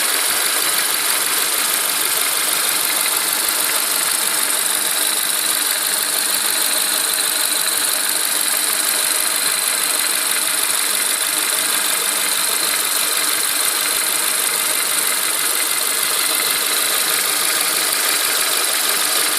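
Renault Megane's K4M 1.6-litre 16-valve petrol engine running steadily, with a rapid, even knocking over the engine sound. The owner suspects a hydraulic lifter (tappet).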